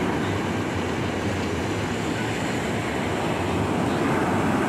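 Ocean surf breaking and washing up the beach: a steady rushing noise with no let-up.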